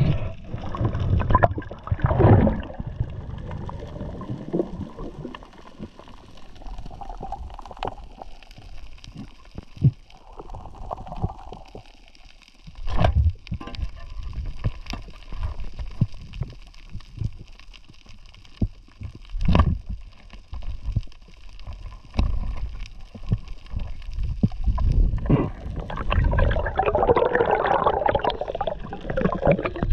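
Muffled underwater sound of water gurgling and sloshing, with a few sharp knocks and a louder stretch of gurgling near the end.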